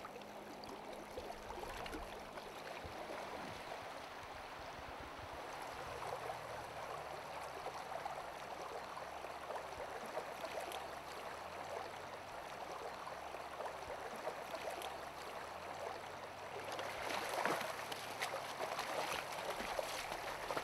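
River water running over a shallow gravel riffle. From about 17 seconds in there is louder splashing as a hooked trout thrashes at the surface in the shallows.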